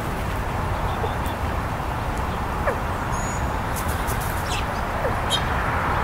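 Steady outdoor rumble and hiss with a few faint, short high chirps and ticks from small birds.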